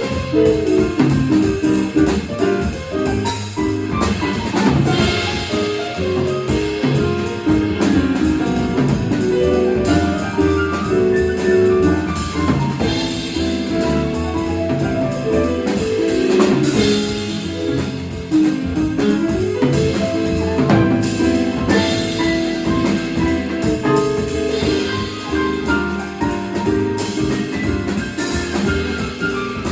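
Live jazz from a quartet of drum kit, piano, bass and saxophone, with the drums and cymbals prominent under moving melodic lines.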